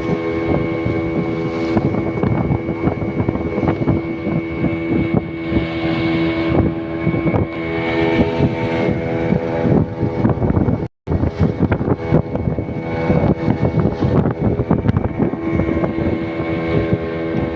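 Outboard motor of a fiberglass longboat running steadily underway: a constant engine hum over dense rough knocking and wind noise. The audio drops out for a split second about eleven seconds in.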